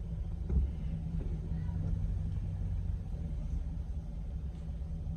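Car driving, heard from inside the cabin: a steady low engine and road rumble, with a brief thump about half a second in.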